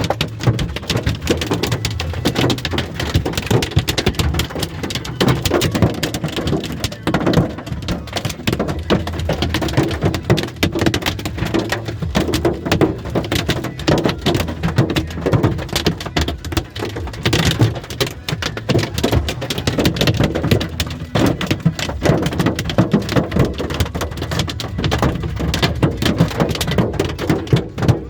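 Large hailstones, about golf-ball size, pelting a vehicle's roof and windshield: a dense, unbroken clatter of hard hits.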